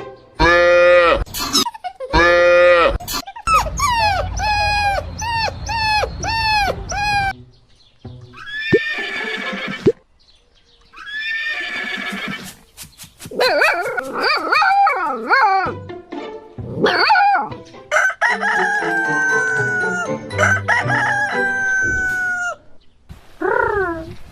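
A run of cartoon animal calls one after another over background music, among them a rooster crowing and a hen clucking.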